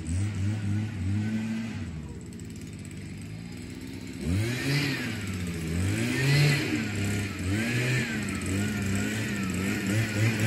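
Leaf blower motor running, its pitch falling and rising again and again as the throttle is worked.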